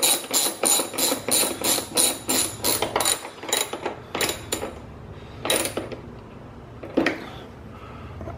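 Hand ratchet working a screw into a plastic headlight housing: a steady run of sharp metallic clicks, about three a second, that slows and stops about four and a half seconds in, followed by two single clicks.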